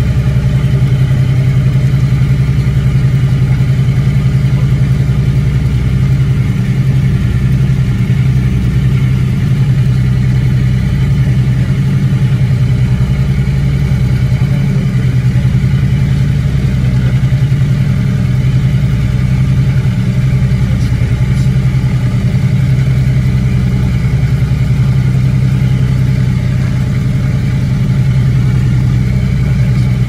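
Aero Commander L-26B's twin piston engines and propellers running at low taxi power, heard from inside the cockpit as a loud, steady low drone with an uneven throb underneath.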